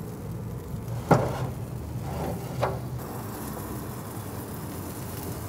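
Metal tongs knocking against the grill grates of a Yoder YS640 pellet grill while strips of glazed bacon are turned over. There is a sharp clank about a second in and a lighter click about a second and a half later, over a steady low hum.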